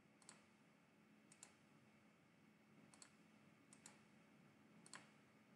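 Faint computer mouse clicks: about five brief double ticks spread across a few seconds, the button pressing and releasing while menu options are picked.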